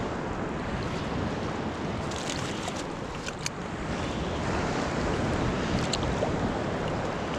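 Sea surf washing onto the shore of the Barents Sea with a rising swell, mixed with wind on the microphone. A few faint clicks come through about halfway and near the end.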